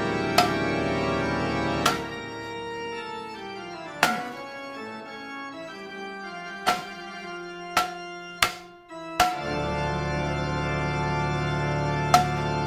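Film score of sustained organ chords over a deep bass, broken by about eight sharp, irregular hits. The music thins about two seconds in and swells back fuller about nine seconds in.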